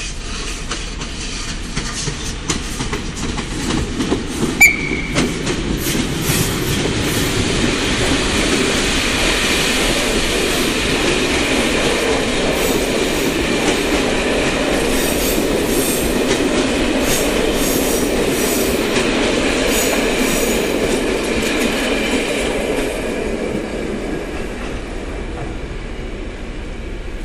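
Locomotive-hauled passenger train passing close by, its wheels rumbling and clattering over rail joints. There is a sharp clank with a brief squeal about four and a half seconds in. The noise holds steady as the coaches go by, then fades near the end.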